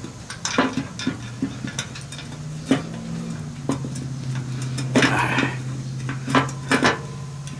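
Irregular metallic clicks and clinks as a replacement blade spindle and its mounting bolts are handled and fitted against a John Deere LA145's steel mower deck, busiest about five seconds in. A steady low hum runs underneath from about three seconds on.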